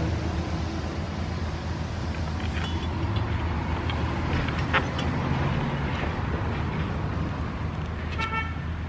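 Steady low rumble of road traffic, with a few faint clicks of a screwdriver working screws into a plastic mounting plate. Near the end comes a short, pitched tone like a distant car horn.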